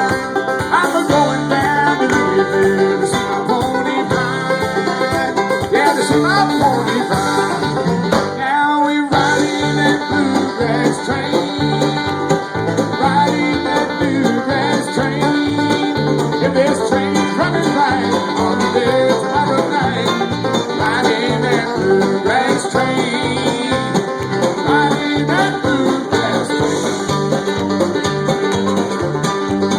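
Bluegrass band playing an up-tempo tune live, banjo and guitar over a steady bass beat. About nine seconds in, the band briefly stops for a break, then comes back in.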